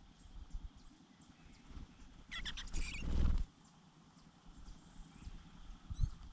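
Birds at a nest: a burst of rustling and high chirping lasting about a second, starting about two seconds in, over faint, thin, high calls and low rumble.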